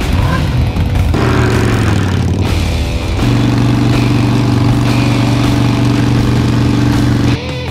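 Motorcycle engine revving up, then held at steady high revs for about four seconds, as in a burnout, before cutting off abruptly just before the end.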